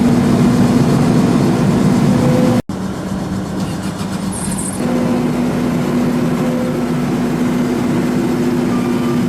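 Diesel engine of a Case SV212D single-drum vibratory roller running steadily with a humming drone. It cuts out for an instant about two and a half seconds in, resumes, and grows a little louder about five seconds in.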